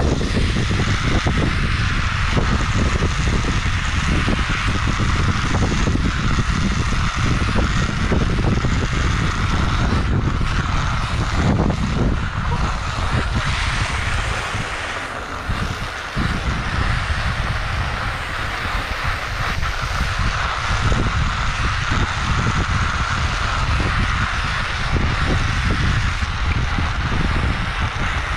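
Wind buffeting the microphone of a head-mounted GoPro during a fast downhill bicycle run, over a steady hiss of rolling road noise. It eases briefly about halfway through.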